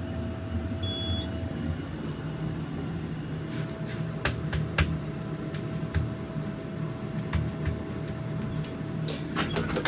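Steady low mechanical hum inside a hydraulic elevator cab, with a faint steady whine and a few light clicks and taps in the middle and near the end.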